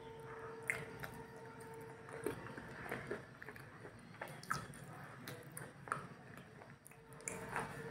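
A person chewing crunchy chips with her mouth closed, with soft irregular crackles about once a second.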